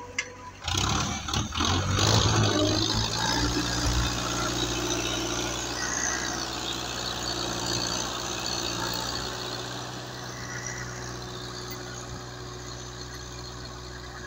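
Belarus 510 tractor's diesel engine running steadily under load while pulling a tine cultivator through dry soil. It comes in loudly about a second in, then slowly eases off toward the end.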